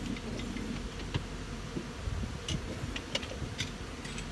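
Honey bees buzzing in the air around opened hives, a low hum that is strongest in the first second, with many light scattered clicks.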